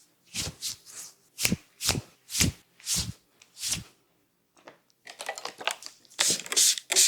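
Hands massaging a person's head and shoulders: about seven separate strokes or pats, roughly two a second. After a short pause comes a quicker, denser run of rubbing and tapping that grows louder near the end.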